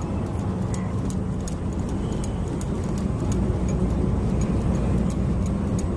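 Steady low rumble of road traffic passing close by, with faint light clicks over it.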